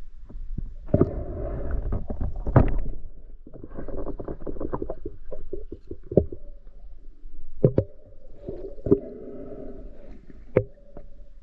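Muffled water gurgling and sloshing, with several sharp knocks scattered through it.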